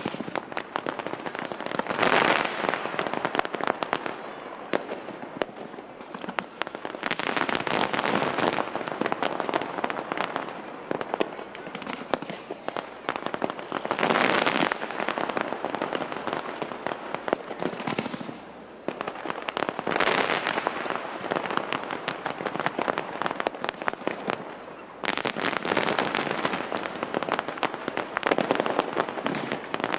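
Fireworks display: a dense, continuous crackle of rapid pops and bangs, swelling into louder volleys every few seconds, with a brief lull a little past the middle.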